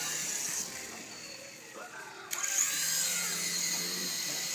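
Toy helicopter's small electric motor and rotor whirring in flight with a high whine; the whine drops away about half a second in and comes back suddenly a little past the middle.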